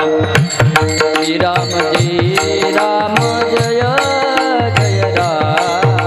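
Devotional kirtan music without words: a melodic line that glides between notes over quick, steady hand-drum strokes.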